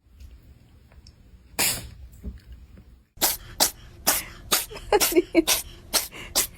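A cat sneezing: one sharp sneeze about one and a half seconds in, then a rapid run of about ten short sneezes, some with a small squeak, in the second half.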